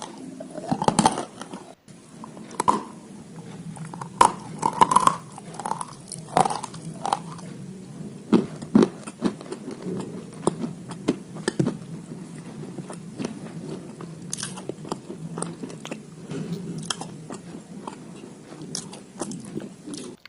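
Close-up biting and chewing of dry red clay crumbles: many sharp crunches, densest in the first half, over steady chewing.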